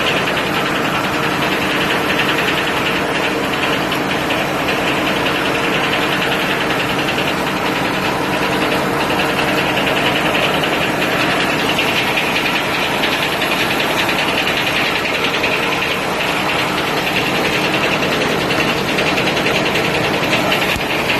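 International UD-14 diesel power unit running steadily at a constant speed, powering the sawmill.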